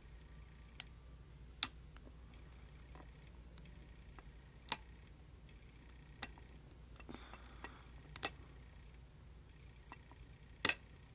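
Faint, sparse sharp clicks of a hook pick and tension wrench working the pin tumblers of a Commando padlock, pins setting one at a time from a false set; the loudest click comes near the end.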